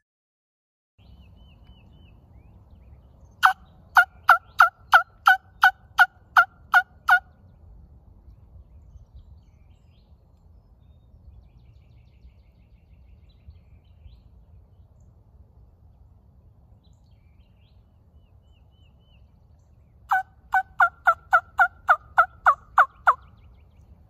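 Two loud runs of turkey yelps, each about a dozen evenly spaced notes at roughly three a second, every note breaking from high to low.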